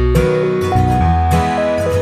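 Instrumental background music.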